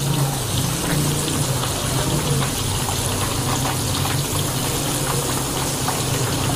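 Battered tempe slices deep-frying in a wok of hot oil: a steady sizzle dotted with many small crackles and pops, over a steady low hum.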